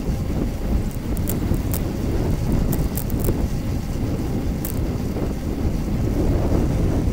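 Wind buffeting an action camera's microphone on a moving bicycle: a steady low rumble, with a few light clicks in the first half.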